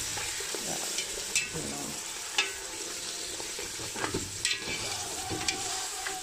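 Pieces of marinated lamb with onion sizzling in hot oil in a metal pot as they are stirred with a spoon. Several sharp clinks and scrapes of the spoon against the pot.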